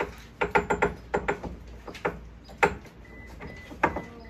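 Sharp metallic clinks and knocks of tools and steel front-suspension parts being handled on a VW Beetle: a quick run of clicks in the first second and a half, then single knocks spaced out.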